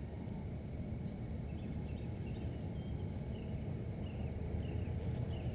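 A small bird chirping over and over, short high notes roughly twice a second from about a second and a half in, over a steady low rumble.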